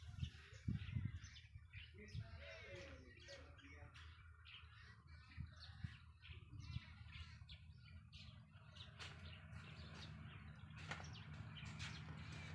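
Small birds chirping, many short high calls one after another, faint, over a low steady hum.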